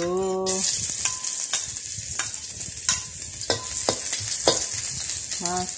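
Sliced shallots dropped into hot oil in a wok, sizzling; the sizzle starts suddenly about half a second in and keeps going. A utensil knocks against the wok about every half second as they are stirred.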